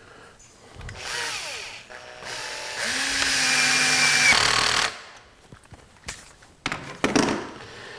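Electric drill-driver running screws in, in two runs: a short one about a second in and a longer, louder one ending about five seconds in. A few clicks and knocks follow.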